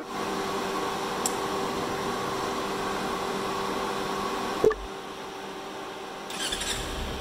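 A steady hum, broken by a single sharp click a little over halfway. Near the end the Kawasaki Ninja 300's starter cranks briefly, and its parallel-twin engine catches and runs at idle.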